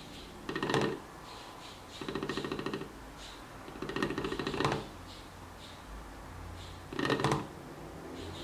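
Homemade three-piston Stirling engine running, its oscillating magnet rattling fast against the 3D-printed plastic coil holder in four short bursts of clatter, each under a second, with a faint steady hum between them. The clatter is the magnet colliding with the plastic part.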